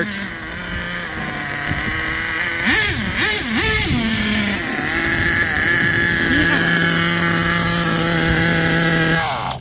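HPI Savage X 4.6 Big Block nitro RC truck's small two-stroke glow engine revving up and down a few times, then holding a steady high pitch before stopping abruptly near the end. The truck is slow to take off because its clutch pad is burnt away and the spur gear is slipping.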